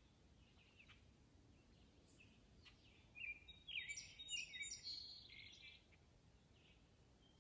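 A songbird singing a quick run of high chirps, starting about three seconds in and lasting a couple of seconds. A few faint chirps are heard earlier.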